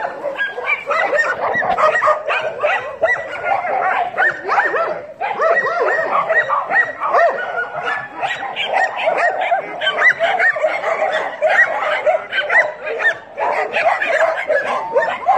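Several dogs barking and yipping at once, a dense chorus of overlapping barks and yelps, with a brief lull about five seconds in.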